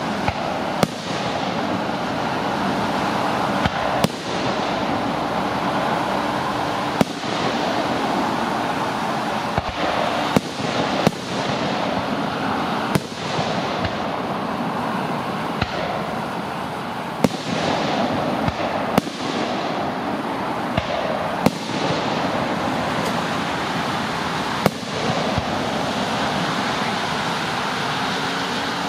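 Aerial fireworks shells bursting overhead: a string of sharp bangs, irregularly spaced from under a second to a few seconds apart, over steady background noise.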